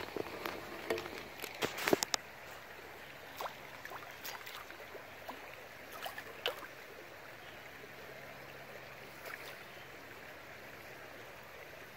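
Shallow creek water running steadily at the bank, with a cluster of sharp splashes and knocks in the first two seconds and a few scattered ones later, as a hooked trout thrashes in the shallows while being unhooked.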